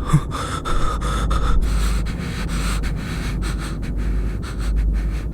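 A man panting heavily in quick, repeated breaths, out of breath and frightened after running, over a low steady drone.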